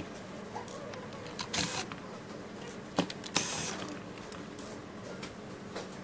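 Handling noise from a screwdriver and the plastic body of a stick vacuum being worked on a tabletop: a few short scraping rustles and a sharp click about three seconds in.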